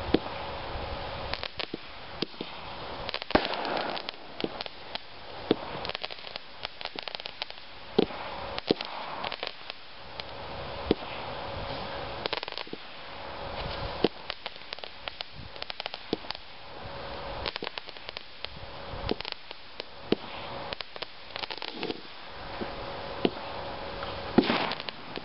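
Fireworks popping and crackling irregularly, several sharp pops a second with a few louder bangs, over a steady hiss.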